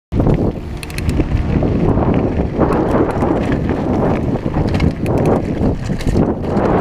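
Downhill mountain bike rolling fast over gravel and a dirt trail: tyres crunching and rumbling over the ground, with a steady rattle of the bike and many sharp clicks and knocks from bumps.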